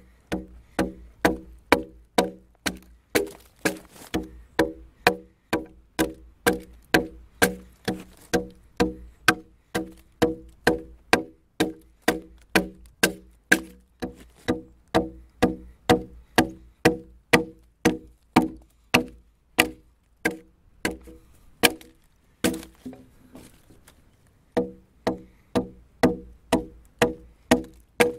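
Sharp woody knocks in a steady, even rhythm, a little over two a second, each with a short ringing tone. They stop for about two seconds near the end, then resume.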